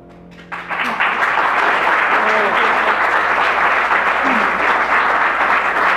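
Audience applauding, the clapping starting about half a second in as the last sustained piano chord fades away.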